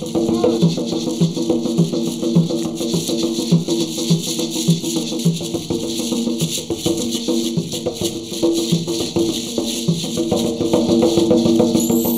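Upbeat percussion music: hand drums keep a steady dance beat while beaded gourd shakers (maracas) rattle continuously over it.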